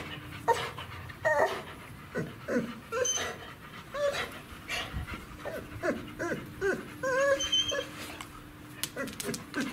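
Dog whining in a string of short, high cries that bend up and down, one after another: the eager whining of a dog in a mating encounter.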